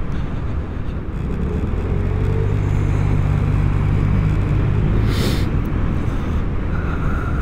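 Vespa GTS300 HPE scooter's single-cylinder engine running steadily under way, with road noise, getting a little louder after about a second. A brief hiss comes about five seconds in.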